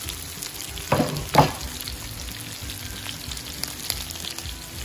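Potatoes and meat frying in fat in a cast-iron kazan: a steady sizzle with scattered small crackles. Two short thumps come about a second in.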